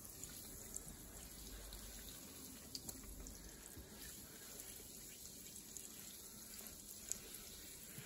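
Butter melting in hot olive oil in a stainless steel frying pan, faintly sizzling and bubbling, with a few light clicks of a knife against the pan.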